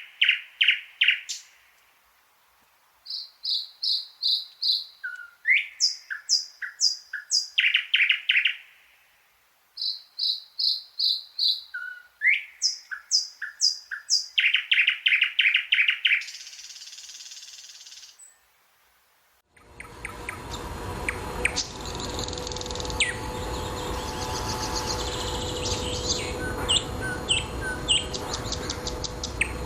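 Thrush nightingale singing: loud phrases of rapidly repeated notes, several in a row, with short pauses between. About two-thirds of the way through, the recording switches to one with a steady noisy background hum, where scattered bird notes and another rapid repeated-note phrase come through.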